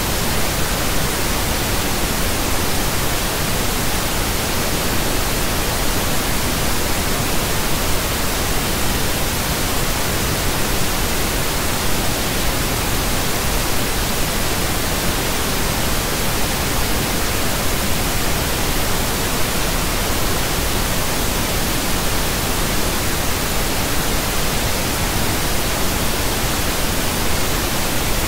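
Pink noise: a steady, even hiss spread across the whole frequency range, with no change in level or character.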